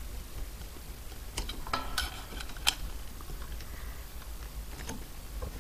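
Faint, scattered metallic clicks and taps of a small screwdriver shaft in the cross-hole of an aluminium propeller spinner nut as it is turned to tighten a propeller onto a brushless motor.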